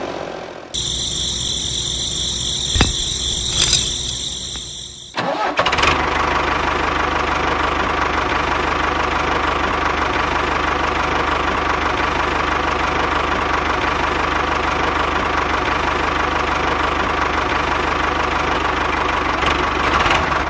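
Tractor engine starting, with a high steady whine for the first few seconds, then settling about five seconds in into a steady idle.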